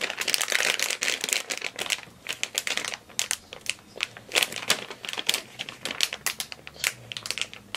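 Crinkling of a foil-plastic blind-bag toy packet as two pairs of hands grip and squeeze it: dense crackling for the first couple of seconds, then scattered sharper crinkles.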